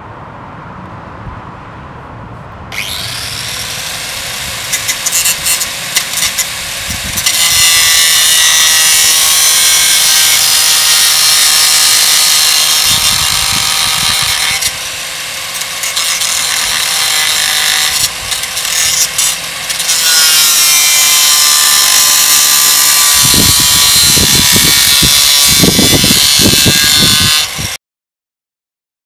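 Angle grinder with a cutting disc spinning up, then cutting through a steel shed threshold strip: a loud, harsh hiss over the motor's steady whine. It eases off briefly a few times and cuts off suddenly near the end.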